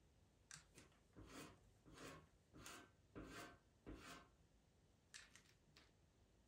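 Pastel pencil scratching across Pastelmat paper in quick short strokes, drawing in a cat's whiskers: about seven strokes in the first four seconds, then a few lighter ones a second later.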